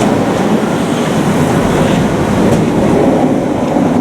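Passenger train running along the platform, a loud steady rumble of wheels on rails.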